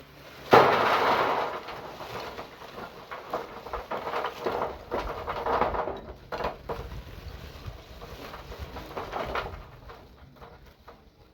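Handling and work noises: a sudden loud clatter about half a second in, then irregular knocks and rustling that die down near the end.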